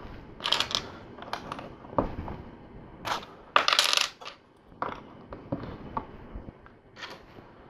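Loose plastic LEGO pieces clicking and clattering as they are picked out of a pile, in scattered bursts with a busier clatter about three to four seconds in.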